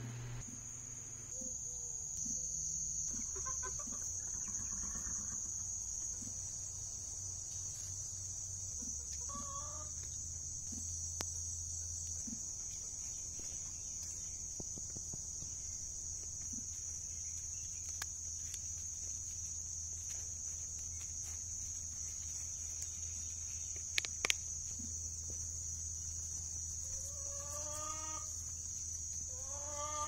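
A steady, high-pitched insect chorus runs throughout, with a few short farm-animal calls, once about a third of the way in and several near the end. Two sharp clicks about two-thirds of the way through.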